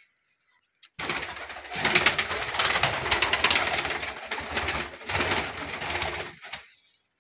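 Domestic pigeons cooing in a loft, under a loud rough rushing noise that starts suddenly about a second in and fades out shortly before the end.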